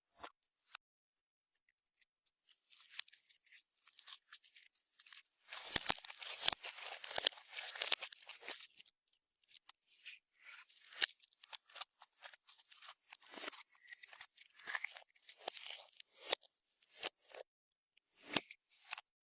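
Clear slime being squished and stretched by hand, giving sticky crackles and pops. They come in a dense run a few seconds in, then scattered snaps.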